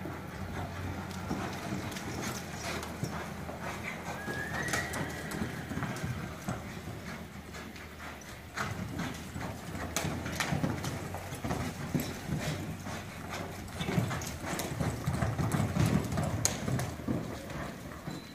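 Quarter horse cantering under a rider on the dirt footing of an arena, its hoofbeats thudding in an irregular patter. They grow louder in the second half as it comes nearer.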